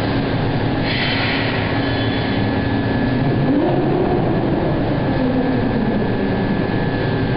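Steady drone of heavy industrial plant machinery, with a whine that rises around the middle and then falls away, and a brief burst of hiss about a second in.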